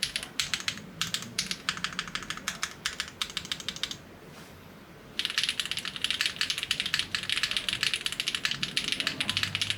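Typing on a Tofu60 2.0 custom mechanical keyboard with Gateron CM switches, a clacky, high-pitched keystroke sound. The typing stops for about a second and a half near the middle, then resumes faster and denser.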